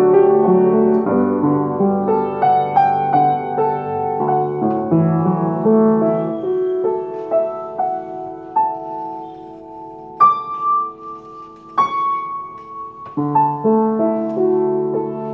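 Upright acoustic piano played solo at a slow pace, chords under a melody. About two thirds of the way in it thins to a few single high notes struck firmly, then full chords return near the end.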